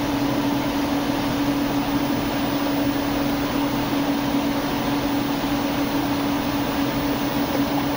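Steady background hum and hiss: one constant low hum under an even hiss, unchanging throughout, with no clicks or other events.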